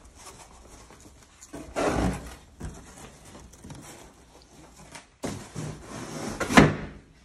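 Corrugated cardboard divider insert rustling and scraping as it is handled and slid down into a cardboard box, ending in one sharp thud as it drops into place near the end.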